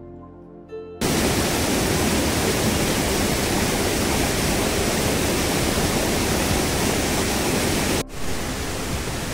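Faint background music for about the first second, then an abrupt cut to the loud, steady rush of a rain-swollen stream in spate. It breaks off briefly near the end and resumes slightly quieter.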